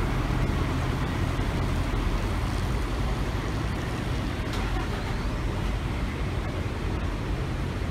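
Diesel engine of a Shizutetsu coach pulling away and driving off, a low rumble whose strongest note drops away within the first second, over steady traffic noise.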